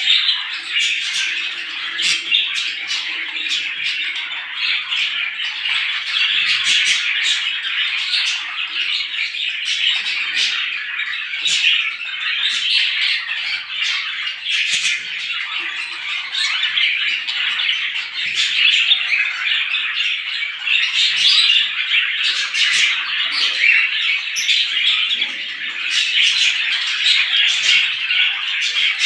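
A flock of small birds chirping all at once in a dense, unbroken chatter of many overlapping short, sharp calls.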